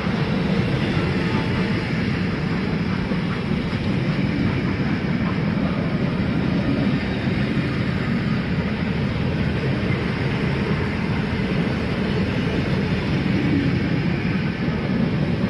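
Passenger carriages of a steam-hauled train rolling past close by: a steady rumble of wheels on rail.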